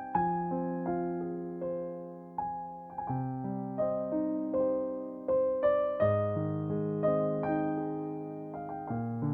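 Background piano music: a slow melody of struck notes that ring out and fade.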